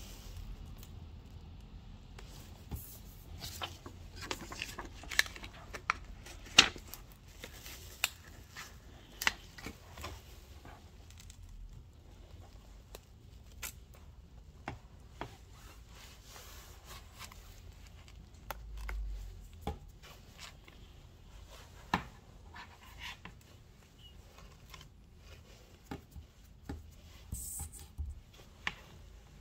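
Small hand tools clicking, tapping and scraping against an iPad as it is worked on by hand: irregular sharp clicks with faint scratching between, the loudest about six and a half seconds in.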